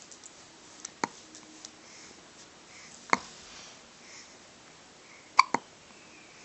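Short, sharp hiccups about every two seconds, the last two coming as a quick double.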